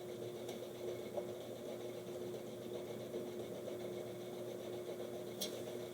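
Desktop computer powered on and running, its fans giving a steady hum with one held tone; a faint click or two. The machine runs but gives no display.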